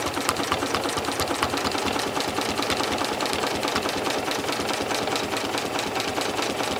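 Janome 6600P sewing machine running steadily at speed, free-motion stitching through a quilt, its needle strokes in a rapid, even rhythm.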